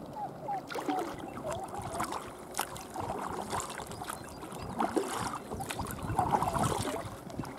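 Paddles dipping and splashing in river water beside an inflatable boat, irregular strokes with water trickling, louder for a moment near the end.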